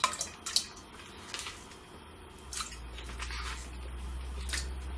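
Raw chicken pieces dropped by hand into a saucepan of water, a few sharp plops and drips in the first second or so. A low steady hum comes in about halfway through.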